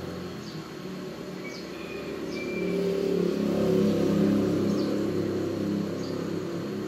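A motor vehicle's engine going by, growing louder about midway and then fading, with a few short high chirps in the background.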